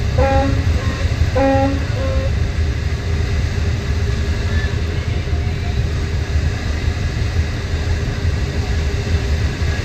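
Passenger ferry under way, its engine a steady low drone. Two short pitched calls sound within the first two seconds.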